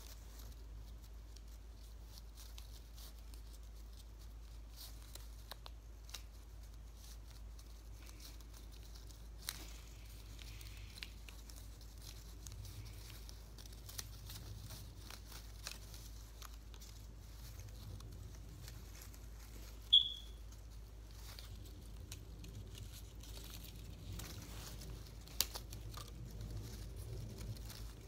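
Black paper strips being handled, folded and curled, with faint rustling, crinkling and small clicks over a low steady hum. About two-thirds of the way through there is one brief high-pitched chirp, the loudest sound.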